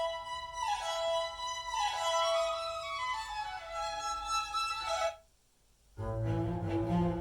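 Recorded instrumental music played through Focal Chora 826 floor-standing loudspeakers: a high melody of held notes that stops about five seconds in, then after a short silence a low bowed-string part begins.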